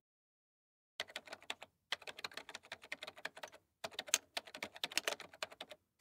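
Typing sound effect: rapid keystroke clicks in several quick runs with short pauses, starting about a second in, as a line of text is typed out.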